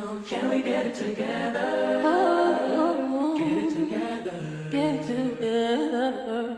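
Background music: a song with layered singing voices.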